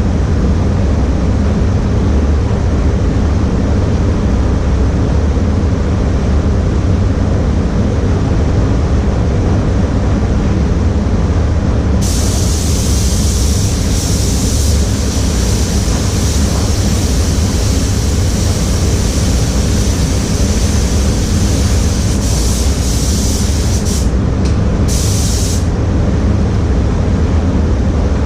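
Paint booth air system running with a steady low rumble. About twelve seconds in, an air spray gun starts hissing as paint is sprayed, pausing briefly a few times, and it stops a few seconds before the end.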